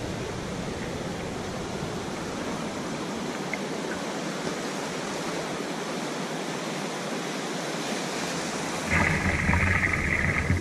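Ocean surf washing in shallow water around the angler's legs, a steady rushing hiss. About nine seconds in, a louder steady buzzing sound joins it.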